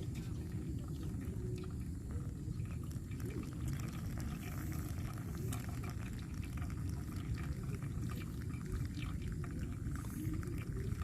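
Liquid poured in a steady stream during V60 pour-over coffee brewing, over a constant low rumble.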